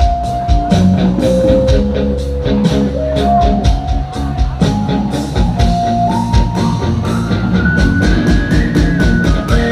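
A live band playing an instrumental with electric guitar, keyboard, bass guitar and electronic drum pad: a held lead melody climbs step by step over a steady bass line and regular drum hits.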